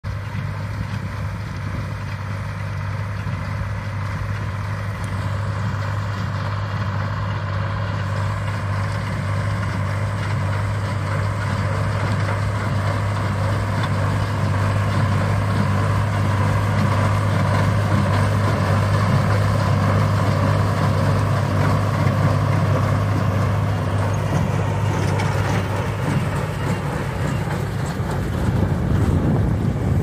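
Tractor engine running steadily as it pulls and drives a small square baler through its PTO shaft, with a low hum that slowly grows louder as the tractor draws nearer.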